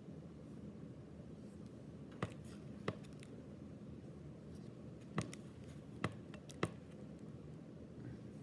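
Hands handling a freshly opened Pokémon trading-card booster pack and its cards: about five sharp clicks and taps, spread out, over a faint steady hum.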